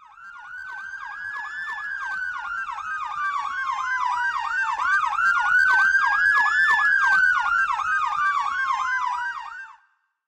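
Fire engine sirens on a response run: a fast electronic yelp cycling about three times a second, layered with a mechanical siren winding up and slowly coasting down twice. They grow louder as the truck comes closer, then cut off abruptly near the end.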